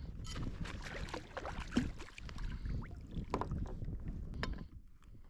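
Water and handling noise as a hooked kahawai is lifted out of the sea onto a fishing kayak and unhooked: irregular splashing and rattling with several sharp knocks, quieting near the end.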